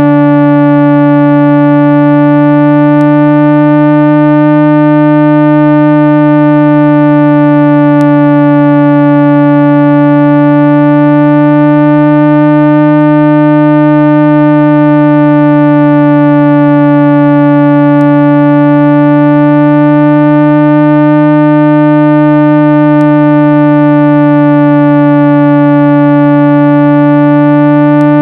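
Loud, steady synthesized tone with many overtones, played to vibrate water and dust out of a phone speaker. Its pitch wavers slightly every few seconds.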